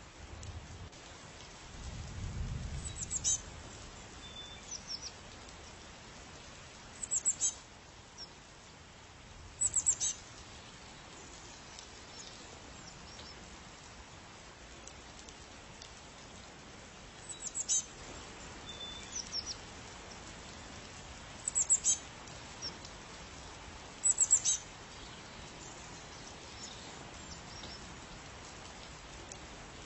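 A songbird calling repeatedly: about six clusters of short, very high chirps every few seconds, over a steady background hiss. There is a brief low rumble about two seconds in.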